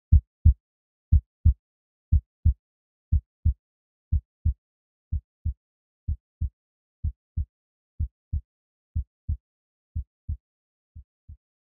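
Heartbeat sound effect: low double thumps, lub-dub, about one beat a second, growing fainter near the end and dying away.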